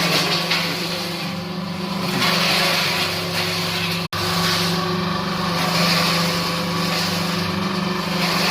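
Spice-mixing machine running steadily: a constant low motor hum with a noisy hiss above it. The sound drops out for an instant about four seconds in.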